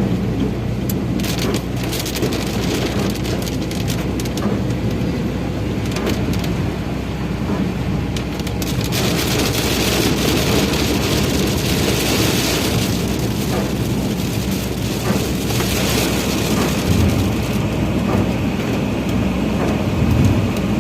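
Rain beating on a moving Maruti Suzuki Ertiga, a steady hiss scattered with sharp drop ticks over the car's low engine and tyre hum. The rain noise swells around the middle and then eases off.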